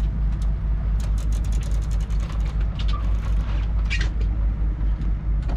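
Boat engine running, a steady low rumble, with scattered clicks and creaks from the heavy fishing tackle as a striped marlin is fought on the line.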